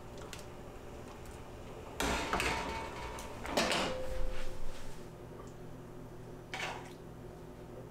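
Kitchen handling sounds: a metal ladle knocking and scraping in a metal saucepan of soup, with a short ringing note, in two bursts about two and three and a half seconds in, then a brief clatter of tableware later on, over a steady low hum.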